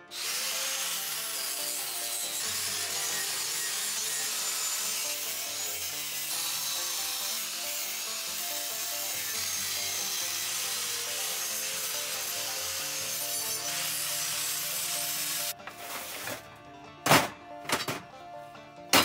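Angle grinder cutting through steel angle iron, a steady high grinding hiss that stops suddenly after about fifteen seconds. A few sharp knocks follow near the end.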